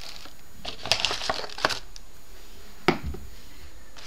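Handling of a cardboard box and its tissue-paper packing: a cluster of rustles and small knocks about a second in, then a single sharp knock near three seconds.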